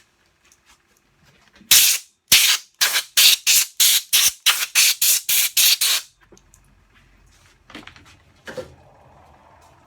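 Aerosol can sprayed in about fifteen quick short bursts, a few per second, over about four seconds, followed by a couple of faint knocks.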